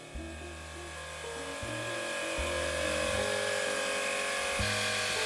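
Portable electric air pump running steadily with a buzzing motor whine, pumping up the air gun's pressure chamber before a shot. It gets a little louder over the first couple of seconds, then holds.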